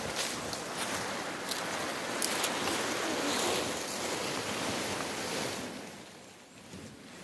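A large tarp being dragged and spread over dry leaf litter and grass under coffee trees, with a long rustling swish and a few sharp crackles in the first half. The rustle fades out about two-thirds of the way through.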